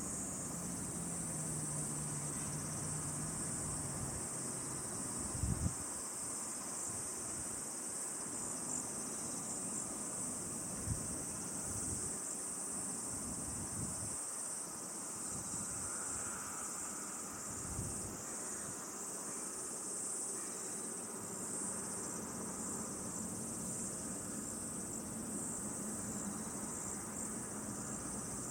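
Steady high-pitched chorus of insects. A few brief low thuds break in, about 5 seconds, 11 seconds and 18 seconds in.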